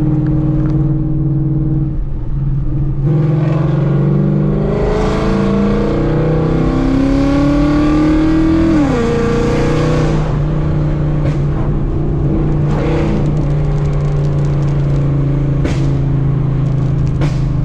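Ford Mustang GT's Coyote 5.0 V8, running through long-tube headers, an X-pipe and a muffler delete, cruising and then pulling hard, its pitch rising for several seconds until a shift drops it near the middle. It then settles back to a steady cruise, with a few sharp pops from the burble tune.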